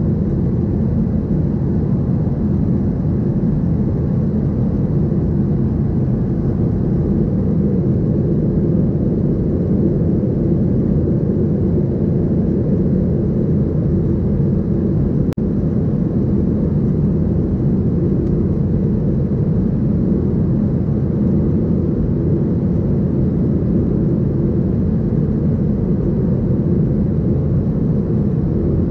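Steady cabin noise of a Boeing 737-700 in flight, heard from a window seat beside the wing: the deep, even rumble of its CFM56-7B turbofans and the rush of air past the fuselage.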